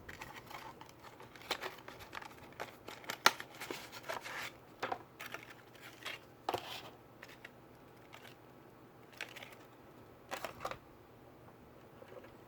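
Short clicks, taps and scrapes of a laptop's parts being handled and worked on, with one sharp click about three seconds in. The sounds come close together at first, stop for a few seconds, then a last brief cluster follows.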